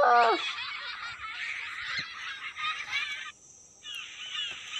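Many children giggling and laughing together, the laughter sound effect of the Nickelodeon light-bulb logo. It opens with a loud high cry, breaks off briefly about three seconds in, then high giggles resume.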